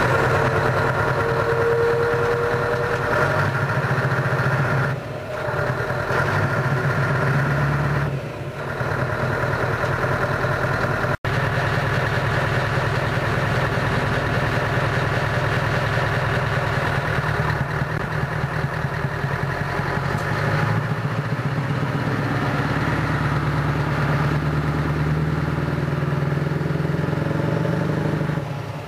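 Scania 580 V8 truck engine running and pulling away, a deep pulsing engine note, with two short dips in level in the first ten seconds and the sound cutting out for an instant about eleven seconds in.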